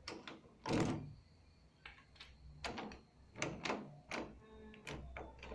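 A key and lock on a house door being worked: a string of short metallic clicks and rattles, with a louder knock about a second in.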